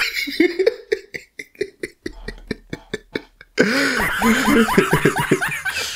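A man laughing hard. The first part is quick, breathy pulses of laughter. About halfway through it becomes louder, voiced laughter that rises and falls in pitch.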